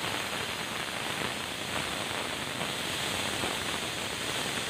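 Steady hiss from an aluminium pressure cooker on a lit gas burner, with the cooker up to pressure after its whistles.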